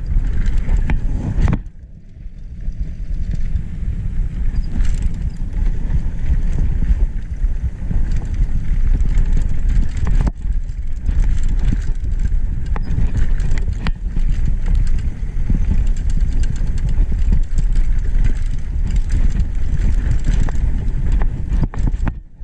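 Wind buffeting an action camera's microphone and mountain bike tyres rumbling over a dirt forest trail at speed, with the bike rattling and knocking over bumps. The noise dips briefly about two seconds in and again near the end.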